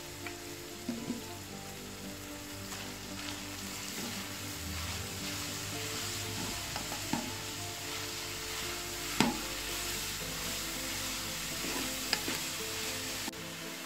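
Green beans and minced meat sizzling in a metal pan on a gas burner while being stirred with a wooden spoon. The spoon knocks against the pan several times, loudest about nine seconds in.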